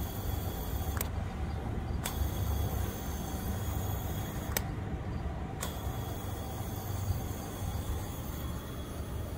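Steady hiss of propane flowing through a replacement generator regulator and hose with the engine not running: the regulator lets fuel pass constantly, a leak.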